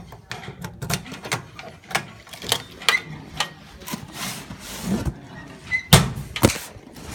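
Metal parcel locker being unlocked and opened: a run of clicks, knocks and rattles from the key and the metal door, with a couple of short squeaks. Near the end a cardboard box is pulled out and bangs against the locker twice, the loudest knocks.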